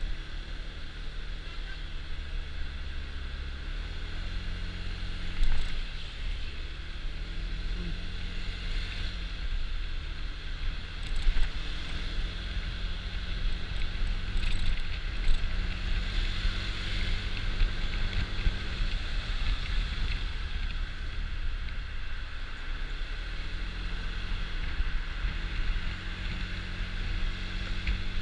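Honda Dio scooter's engine running while riding in traffic, its pitch rising and falling a few times with the throttle, under steady wind noise on the microphone.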